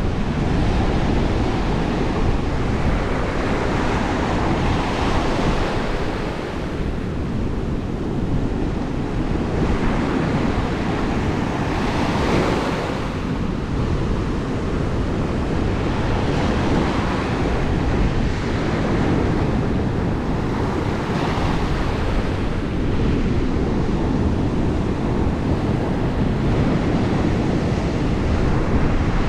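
Ocean waves breaking and washing ashore, with a surge of hissing wash every few seconds over a steady low rumble of surf.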